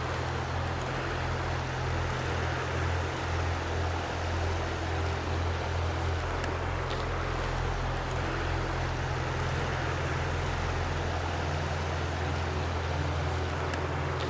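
Mountain stream water rushing steadily over its bed, with a constant low rumble underneath.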